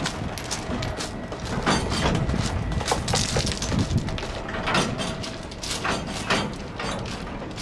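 Container-laden Koki freight wagons rolling slowly along the track during shunting, with irregular sharp knocks and clanks from the wheels and couplings, roughly one a second, over a steady rumble.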